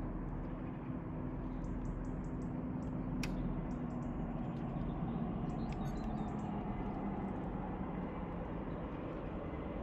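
Steady outdoor background noise with a low hum that sags slightly in pitch, and small birds chirping in short high bursts now and then.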